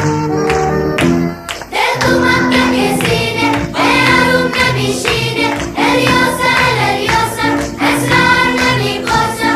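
Background music: an instrumental passage that gives way at about 1.7 s to a song with several voices singing over a steady beat.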